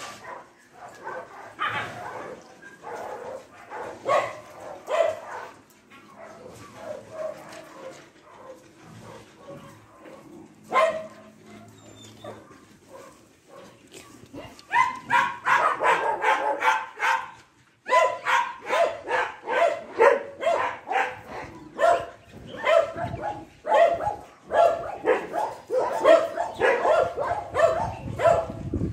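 Dog barking in short repeated barks and yips, scattered at first, then rapid and near-constant from about halfway through, a few barks a second.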